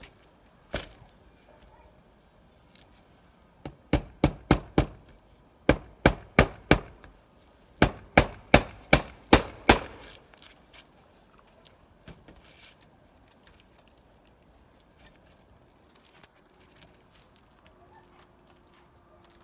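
Hammer driving nails through roofing felt into a timber shed roof. One blow near the start, then three quick runs of blows at about three a second between roughly four and ten seconds in.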